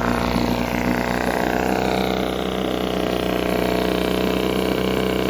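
1971 Evinrude 6 hp two-stroke outboard motor running at a steady idle.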